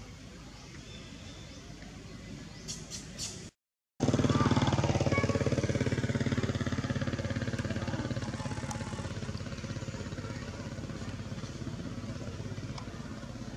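An engine running steadily after a brief cut in the sound, loud at first and slowly fading.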